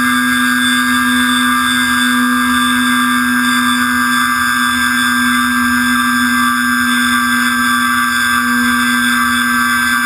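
Electric motor and propeller of an RC motor glider running at a steady high throttle, heard from a camera on the fuselage: a constant, unwavering whine with many overtones.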